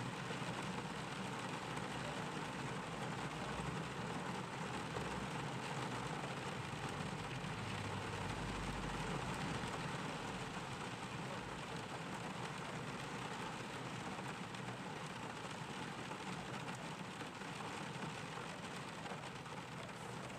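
Steady gentle rain falling, an even hiss with a low rumble underneath that swells briefly about eight seconds in.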